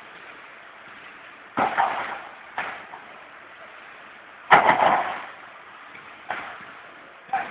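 Hollow-profile and light-steel forming machine running steadily, with five sharp metallic clanks at uneven intervals; the loudest comes about halfway through.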